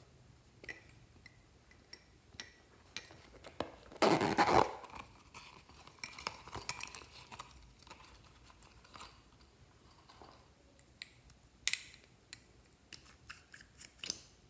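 Glossy slime being handled and mixed by hand: scattered sticky clicks and pops, with one louder squelching burst about four seconds in and a quick run of clicks near the end.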